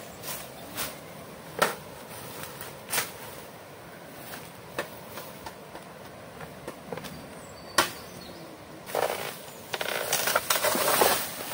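About half a dozen sharp snaps and knocks at irregular intervals, then a couple of seconds of rustling and crackling near the end: dry twigs, leaves and bamboo being broken and struck by someone working through forest undergrowth.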